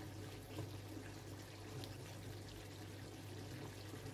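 Chicken stew in wine bubbling faintly in a pan on high heat while a spoon stirs the pieces, over a steady low hum.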